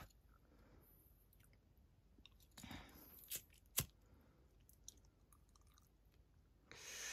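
Near silence broken by a few faint sounds: a short rasp, then two sharp clicks a little past the middle, and another short rasp near the end. These fit a hand-held gas lighter being struck to light birthday candles.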